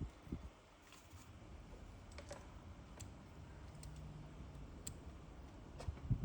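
A few faint, scattered light clicks and ticks, spaced irregularly about a second apart, over a low steady hum.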